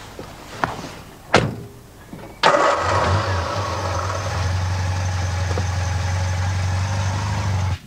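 A car door shuts with a thump, then about a second later a car engine starts and runs steadily at idle. The engine sound stops abruptly near the end.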